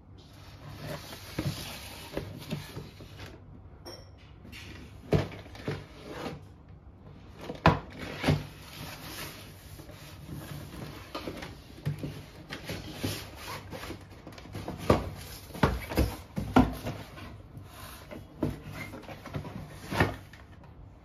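Cardboard boxes being handled and turned over by hand, with cardboard scraping and rubbing and irregular knocks, several of them close together near the end.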